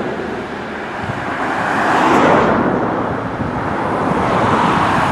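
Road traffic passing close by: one vehicle goes past with a rush that swells and fades about two seconds in, and another builds up near the end.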